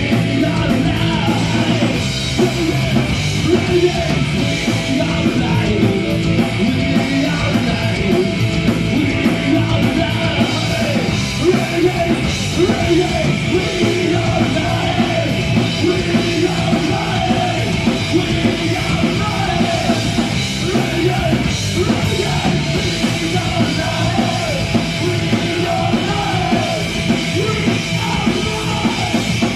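Live rock band playing a loud, heavy punk-style song: electric guitars, bass and drums with shouted lead vocals, running without a break.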